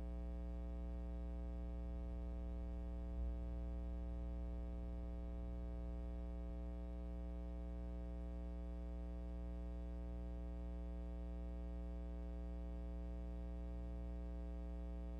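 A steady, unchanging low drone made of many even tones, with one brief click about three seconds in.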